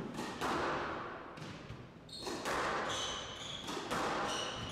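Squash rally: the ball is struck by rackets and knocks off the court walls several times. From about two seconds in, shoes squeak on the court floor.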